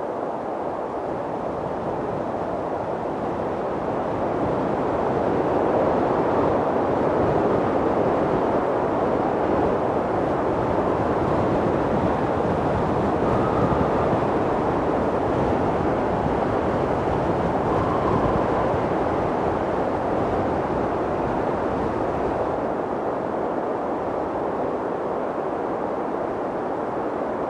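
Mountain wind blowing in a steady rush that swells a few seconds in and eases slightly near the end.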